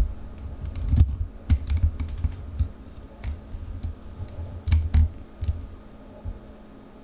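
Irregular light clicks and low thumps of objects being handled close to the microphone, loudest about a second in and again near five seconds, then fading out.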